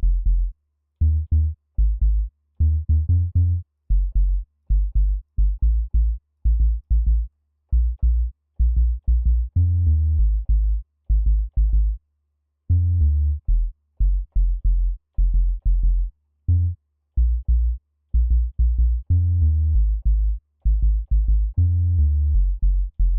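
Synthesized 808-style bass, a patch with a driven, distorted oscillator, filter and envelope, played as many short, deep notes. The notes come in quick clusters at a few different low pitches, with brief gaps between clusters, while its attack, decay, sustain and release are being tuned.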